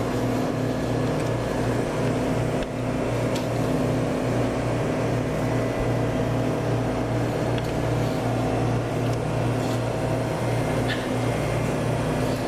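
Steady low mechanical hum with an even tone, with a few faint ticks over it.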